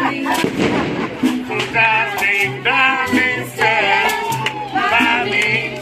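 Live small-band music: a plucked upright double bass and a drum kit keeping time under a wavering lead melody.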